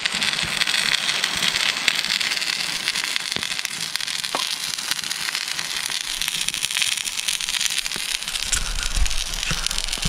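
Campfire crackling and hissing steadily, with scattered sharper pops, as cookware sits on the flames. A low rumble comes in near the end.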